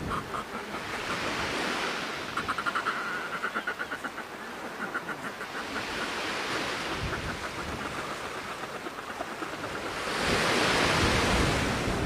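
Sea surf and wind: a rushing noise that swells and ebbs like breaking waves, loudest near the end. A faint, fast pulsing sound comes through a few times in the first half.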